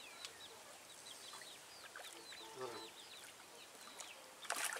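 Small birds chirping with many short falling calls, and a single clucking call about halfway through. Near the end, a brief splash as the hooked grass carp thrashes at the water's surface.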